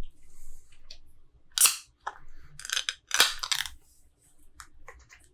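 A few short, sharp clicks and knocks, two of them louder and about a second and a half apart.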